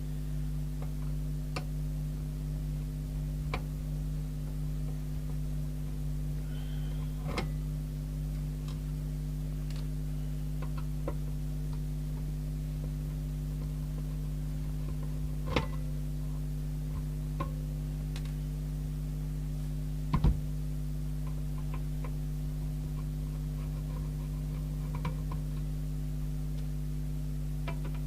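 Scattered small clicks and taps of a screwdriver and metal screws as the case of a Rotel RVC240 CB radio is opened, the loudest about fifteen and twenty seconds in, over a steady low hum.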